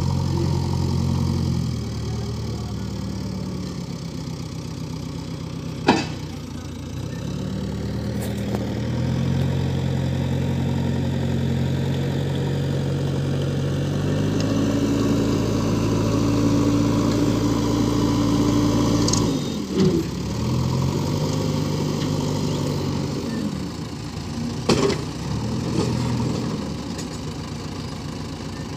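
Diesel engines of a JCB backhoe loader and a tractor working in a river to move a loaded tractor-trailer stuck in the water, revving up, holding and dropping back again several times. A few sharp knocks sound over the engine noise.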